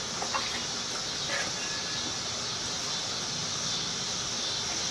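Steady high-pitched chorus of insects droning outdoors, with a few faint small clicks.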